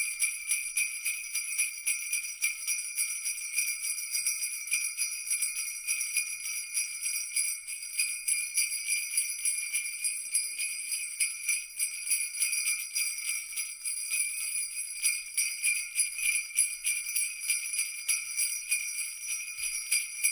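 Small metal bells jingling continuously in quick, even pulses, a bright ringing with no low sound under it.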